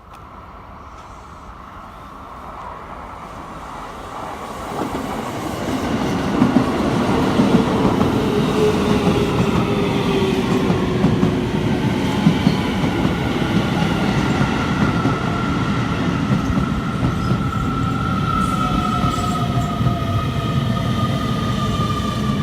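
Electric train running into the station and slowing, its motor whine sliding slowly down in pitch over wheel and rail noise. It grows loud about five seconds in and stays loud.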